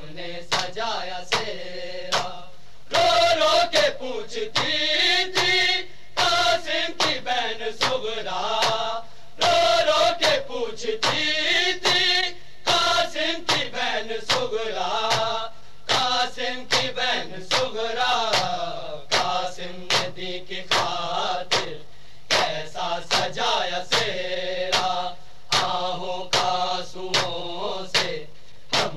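A group of men reciting an Urdu noha, a Shia lament, in chorus without instruments, kept in time by a steady rhythm of sharp chest-beating (matam) slaps.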